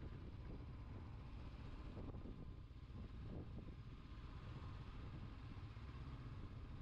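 Honda CB500X parallel-twin engine running steadily as the motorcycle is ridden, a low rumble with small rises and falls.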